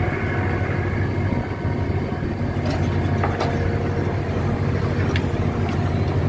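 Steady low drone of heavy marine diesel machinery working during coal unloading by a floating crane's grab buckets, with a few light clanks around the middle.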